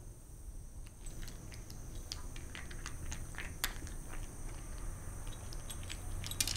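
A cat crunching dry kibble: irregular crisp crunches and clicks as it bites and chews.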